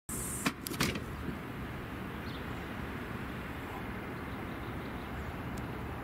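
Steady outdoor background rumble and hiss, with a few sharp clicks in the first second.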